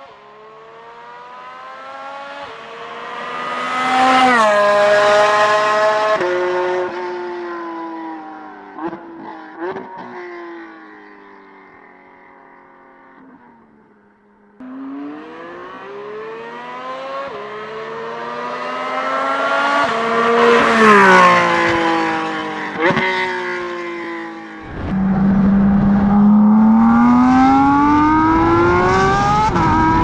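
Porsche 718 GT4 RS 4.0-litre flat-six with Dundon street headers and V11 muffler, accelerating hard in two flybys. Its pitch rises and drops at each upshift as the car approaches and passes. Near the end, a close-up of the exhaust during a full-throttle pull, revs climbing steadily.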